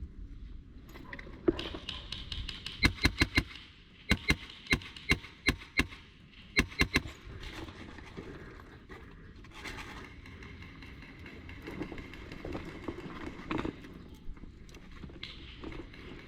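Airsoft gun firing three short strings of sharp, quick shots, between about three and seven seconds in, amid shuffling movement.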